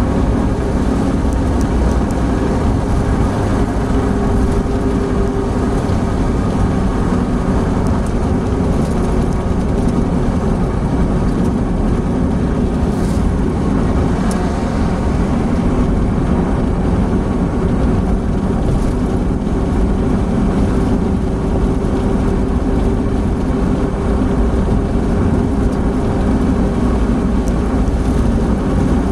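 Opel Blazer cruising at highway speed, around 100 km/h, heard from inside the cabin: a steady mix of engine drone, tyre roar and wind noise.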